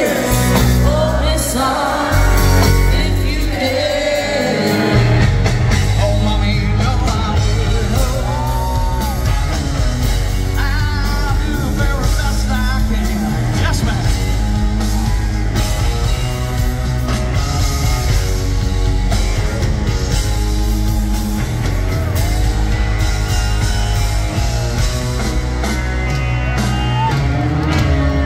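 Southern rock band playing live, heard from the audience: electric guitars, bass and drums with a lead singer and backing vocals.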